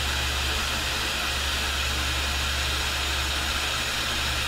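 Filtered shop vacuum running steadily, an even hiss over a low steady hum.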